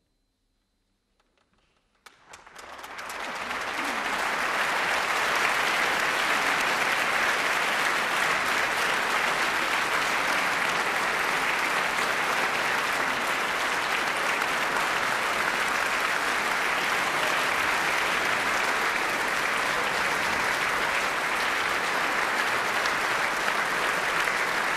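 Near silence, then a concert-hall audience starts applauding about two seconds in, quickly building to steady, dense clapping that marks the end of the orchestral performance.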